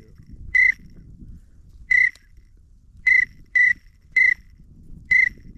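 A duck whistle blown in six short, steady-pitched peeps at irregular spacing, calling to a single incoming duck.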